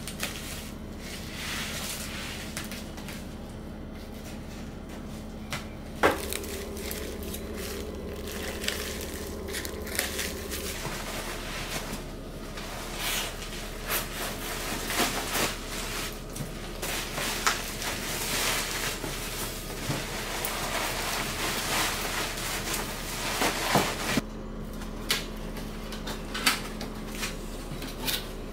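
Kitchen handling sounds: scattered light clicks and knocks of utensils, dishes and containers being moved about, with one sharp knock about six seconds in, over a steady low hum.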